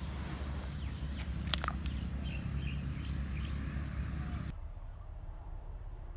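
Outdoor ambience by a paddy field: a steady low rumble with a few sharp clicks about a second and a half in and faint short chirps, then a cut to a quieter hiss for the last couple of seconds.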